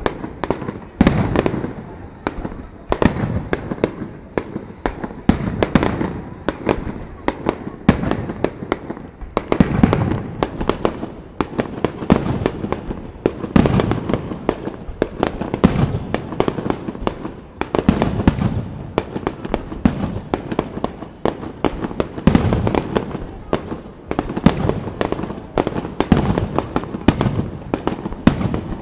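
Aerial fireworks display: shells burst in a dense, unbroken barrage of bangs, several each second, each trailing off in echo.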